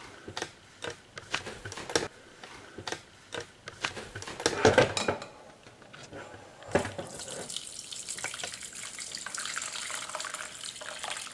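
A metal saucepan clinks and knocks as it is handled over the stove and counter, with a louder clank about seven seconds in. Then broth pours steadily through a stainless steel mesh strainer into a bowl.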